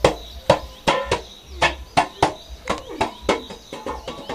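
Stainless steel bowl being knocked repeatedly: sharp metallic knocks about two a second, each with a brief ring.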